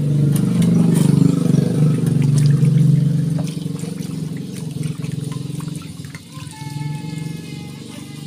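Small 12-volt DC mini pump running with a steady hum, loudest for the first three seconds and then easing. Water gurgles and splashes as it draws from a tipped plastic jerry can through a clear hose.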